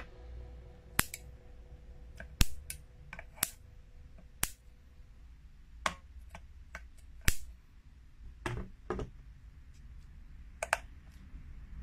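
Solar bug zapper's high-voltage grid sparking as a screwdriver tip touches it: about a dozen sharp snaps at irregular spacing, some much louder than others. The sparking is the sign that the zapper is working.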